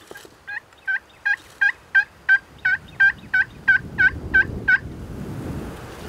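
Turkey yelps: a run of about thirteen evenly spaced calls, roughly three a second, that stops about five seconds in. A low rumble builds near the end.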